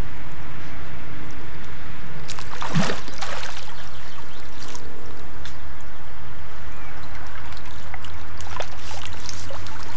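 Landing net splashing and trickling in pond water as it is pushed through and drawn along the surface, with one louder splash about three seconds in and a few small clicks near the end.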